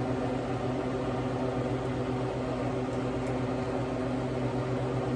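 Steady low machine hum made of a few even pitched tones over a light hiss. A couple of faint clicks of a metal spoon against the pot come about three seconds in.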